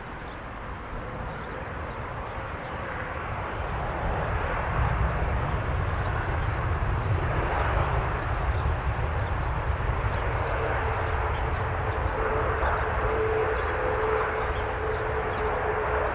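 Jet airliner flying over, its engines' rumble growing louder about four seconds in and then holding steady, with a steady whine joining about ten seconds in.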